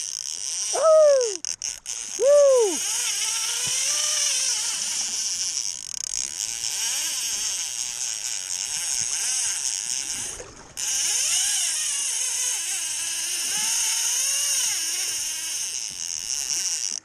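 A fly reel's ratchet drag buzzes in spurts as the spool spins while a hooked steelhead is played. Each spurt rises and falls in pitch. The two loudest come about a second and two and a half seconds in, with fainter ones after, over a steady hiss of rushing river water.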